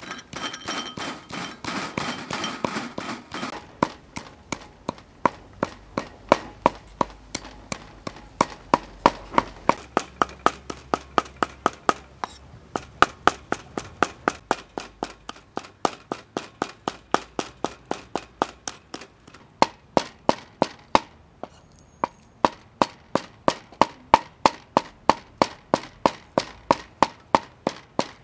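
Cleaver chopping on a round wooden chopping block, steady sharp strikes about three a second, mincing food. A denser rattle fills the first few seconds, and the chopping pauses briefly about two-thirds of the way through.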